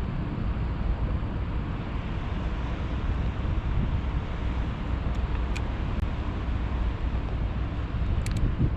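Steady low outdoor rumble with a few faint clicks about five and a half and eight and a half seconds in.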